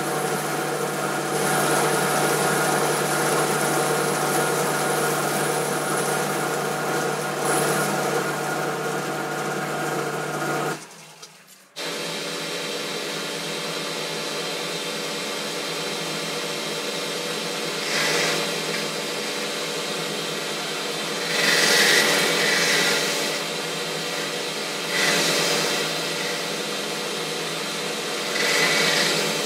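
Boxford lathe running steadily with a tool cutting metal on a turning part. After a short break, the lathe runs on while a ball-turning attachment cuts a ball end, with four brief louder rushes of cutting noise.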